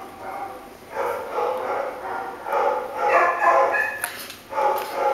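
Several dogs barking in repeated bouts, each lasting about a second.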